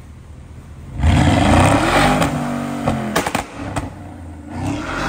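Porsche Cayenne's swapped-in 4.8-litre V8 blipped hard about a second in, held briefly, then falling back. A few sharp exhaust cracks follow as it drops back toward idle.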